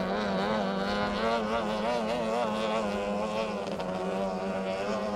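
18 hp outboard motors of racing tunnel boats running flat out, a continuous engine note whose pitch wavers as the boats pass.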